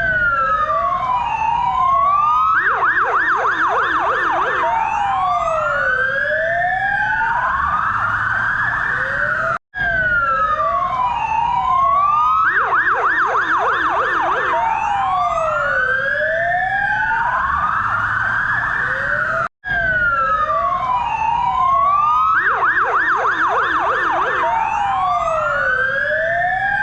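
SA Ambulance siren running through its patterns: a slow rising and falling wail, then a few seconds of rapid yelp at about five cycles a second, then back to the wail. The sequence repeats three times, with brief silences about 10 and 20 seconds in.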